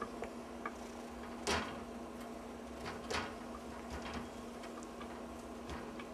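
Scattered light taps and knocks from a Singapura kitten at play, with two louder knocks about a second and a half and three seconds in, over a steady low hum.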